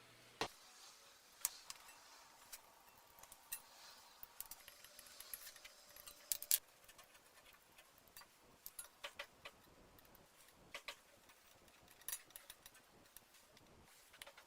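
Irregular sharp clicks and light metallic clinks of small metal parts of an antique table fan being handled, with a pair of louder clicks about six seconds in.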